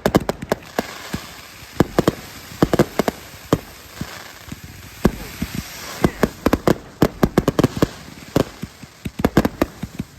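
Fireworks going off: rapid irregular bangs and cracks in clusters, with a crackling hiss between them and a brief lull about halfway through.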